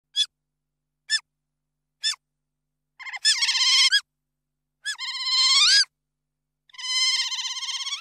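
Otter squealing: three short, high chirps about a second apart, then three longer, wavering high-pitched squeals of about a second each that rise at their ends.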